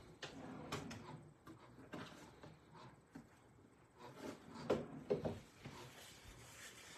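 Faint rustling and light knocks of someone off-camera fetching tissues, with a cluster of louder handling noises about four to five seconds in.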